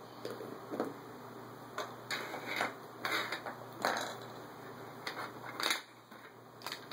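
Plastic action figures being handled, knocked together and set down on a wooden floor: irregular short clicks and rustles, about ten in all.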